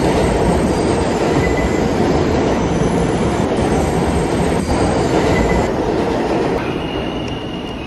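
Wooden toy subway cars rolling along wooden toy track, pushed by hand: a steady, loud rolling rumble of wooden wheels on the track, easing off near the end as the cars move away.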